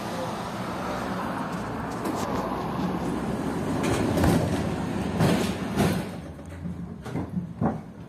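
A KTM-5 (71-605) tram heard from inside its passenger cabin: a steady rumble and hum of the running tram. Between about four and six seconds in come several loud clacks and knocks from the wheels and body. After that it is quieter, with a few sharp clicks, as the tram slows.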